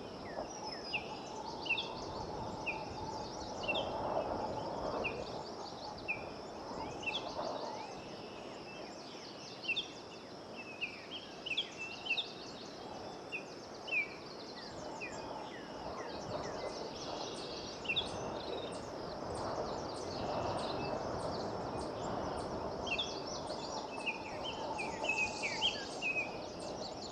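Rainforest ambience: many short bird chirps and calls scattered throughout over a steady high insect drone.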